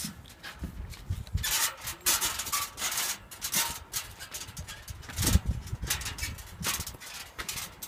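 Footsteps climbing steel stairs, with shoe soles scraping on the gritty treads at each step in an uneven rhythm of about two a second, and dull thuds underneath.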